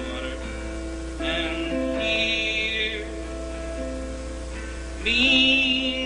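Acoustic guitar strummed steadily in sustained chords, with wordless singing from a man's voice coming in three times, loudest near the end.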